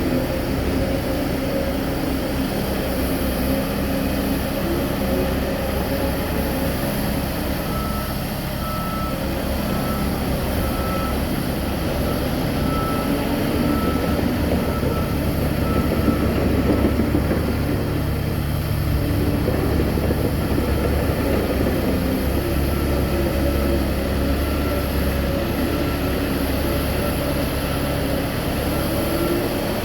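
Heavy engines of a bulldozer and a stuck truck running steadily, a little louder around the middle, with a reversing alarm beeping about one and a half times a second for several seconds from about a quarter of the way in.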